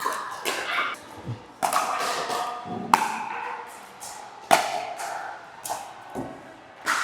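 Pickleball paddles striking a plastic pickleball during a rally, sharp pops about every second and a half, over background murmur of voices from the courts.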